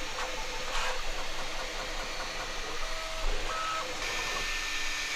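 A small machine running: a steady hiss with short whining tones that start, stop and change pitch every second or so.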